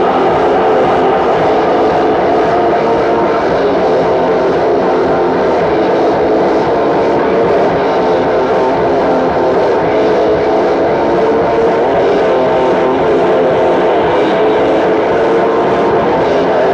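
Raw black metal recording: a loud, dense, unbroken wall of distorted sound with a droning, lo-fi character.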